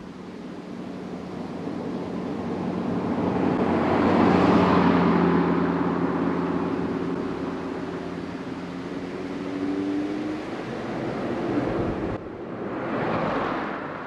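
Audi RS3 8V's five-cylinder engine heard through its valved RS exhaust under way. The note swells to a peak about four seconds in, then settles to a steadier cruise. About twelve seconds in it breaks off abruptly, then swells again.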